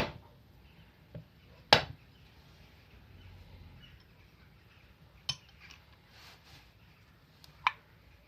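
Metal parts of an old hand-cranked grinder being handled on a workbench: four sharp clinks and knocks, the loudest about two seconds in, with faint handling noise between them.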